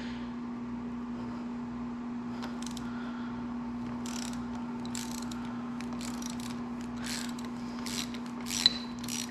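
Hand tools working metal on the motorcycle's front brake caliper: a series of irregular clicks and short scrapes, like a socket wrench being fitted and ratcheted on the caliper bolts, over a steady low hum.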